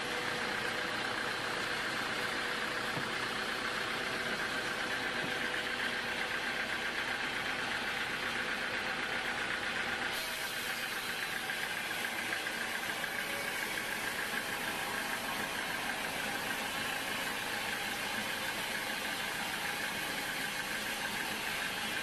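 Band sawmill running steadily, its band-saw blade sawing a teak log. The sound changes abruptly about ten seconds in.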